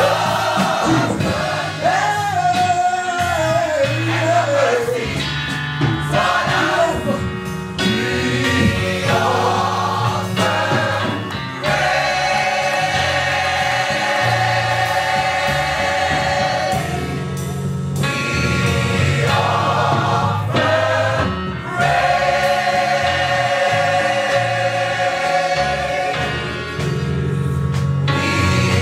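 Gospel mass choir singing with instrumental accompaniment, holding long sustained chords over a steady bass line. In the first ten seconds the voices move in gliding melodic runs.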